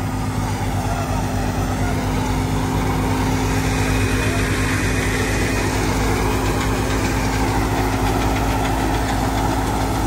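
Tractor-driven wheat thresher working at full tilt. The tractor's engine runs with a steady low hum under the constant noise of the threshing drum and belts.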